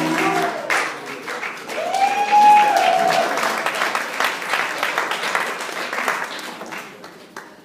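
Audience applauding at the end of an Irish dance reel. One long cheer rises over the clapping about two seconds in, and the applause fades out near the end.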